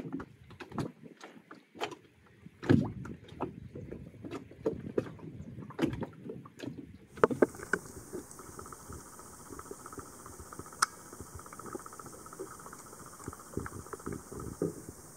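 Sea water lapping and sloshing at a floating fish pen, with irregular knocks and a couple of louder thuds. About seven seconds in it changes to underwater sound: a steady hiss with faint scattered clicks.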